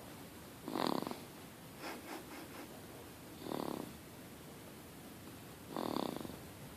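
A sleeping baby snoring: three short snores, about one every two and a half seconds.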